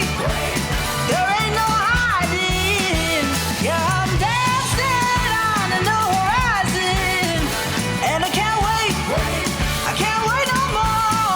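Pop-rock song with singing over a full band.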